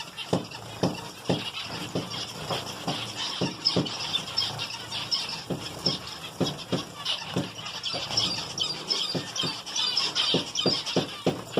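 A group of small aviary finches chirping and calling over each other without a break. Through it comes a run of short, soft splashes and wing flutters, about two a second, from birds bathing in water.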